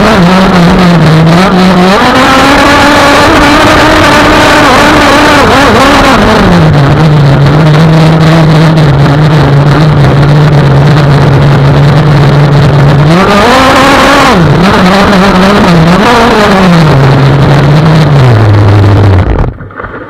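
Gas RC boat's two-stroke engine with a tuned pipe running loud at high revs, its pitch rising and falling with the throttle, over the rush of water spray. Near the end the revs step down and the engine sound drops away sharply as it is throttled back.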